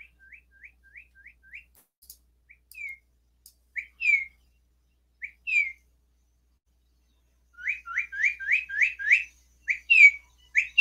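Recorded northern cardinal song played back from an educational web page: clear whistled notes. It opens with a faint quick run of rising notes, then a few separate down-slurred notes, then a fast series of rising whistles, with the loudest notes near the end.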